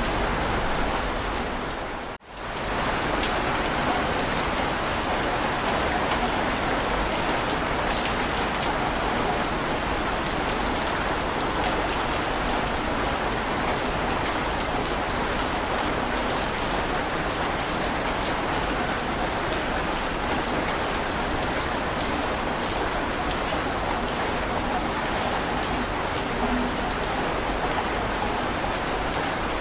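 Heavy rain falling steadily, a dense hiss with fine patter of drops. It cuts out almost to silence for a moment about two seconds in, then comes straight back.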